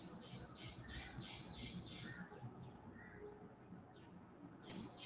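Faint bird chirping: a quick run of repeated high chirps, about three a second, for the first two and a half seconds, then a few more near the end.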